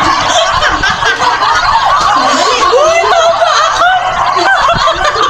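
Several young women laughing at once, loud and continuous, with high squeals gliding up and down over one another.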